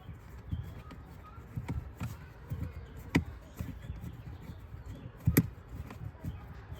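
Knocks and clicks as a hose-type clamp on a dinghy's mast-adapter tube is worked tight by hand. Scattered short clicks come over a low rumble, with a sharp one about three seconds in and a quick pair near the end.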